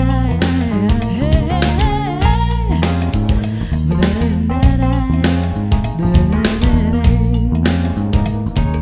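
Background music: a guitar plays a lead line with bending, sliding notes over a bass line and drums keeping a steady beat.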